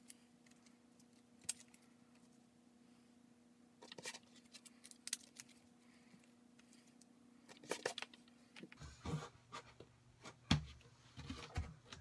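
Faint, scattered scratches and crinkles of green painter's masking tape being handled and pressed onto a surfboard, over a low steady room hum.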